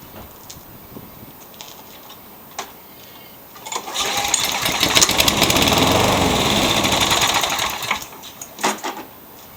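Lawn mower's small four-stroke engine firing on a shot of carb cleaner, running for about four seconds and then dying out. It starts only on carb cleaner. A few light clicks come before it, and a couple of knocks just after it stops.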